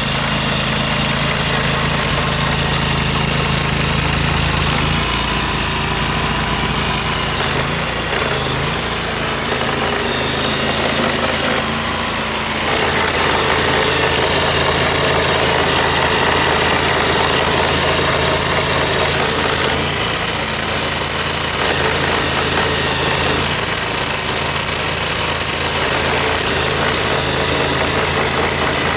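Gas-engine pressure washer running steadily. Its tone shifts about five seconds in, and it gets a little louder around thirteen seconds in.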